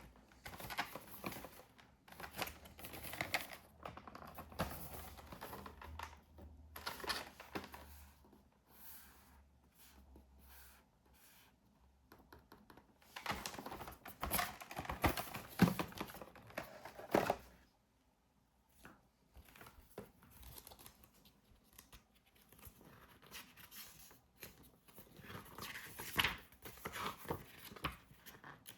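Plastic wrapping being torn open and crinkled while a boxed product is unwrapped by hand, in irregular rustling bursts with short pauses. The loudest stretch of tearing and crinkling comes about halfway through.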